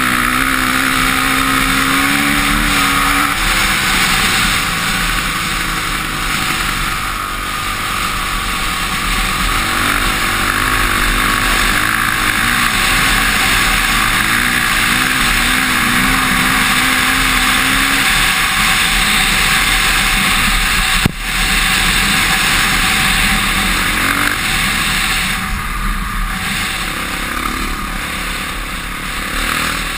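Honda CRF450R dirt bike's single-cylinder four-stroke engine running hard, its revs rising and falling as the rider accelerates and eases off, with heavy wind noise over the helmet-mounted microphone. A brief sharp drop in the sound comes about two-thirds of the way through.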